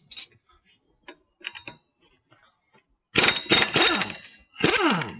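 A ratchet and socket working the axle nut on an ATV's wheel hub. A few light clicks and taps come first. Then, about three seconds in, there are two loud spells of metal ratcheting and grinding, and the second ends in a squeak that falls in pitch.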